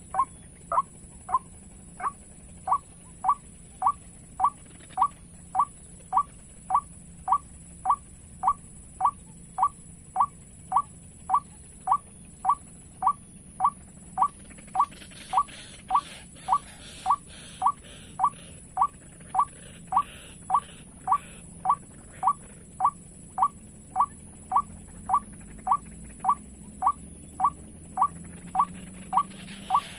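White-breasted waterhen call repeated as a bird lure: short rising notes, about two a second, in a steady unbroken rhythm.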